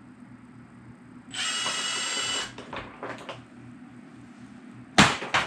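A tool working on the engine whirs steadily for about a second, with a fast, even ratchet-like sound. A few light clicks follow, then a sharp metallic clank near the end as a removed part is set down or tossed.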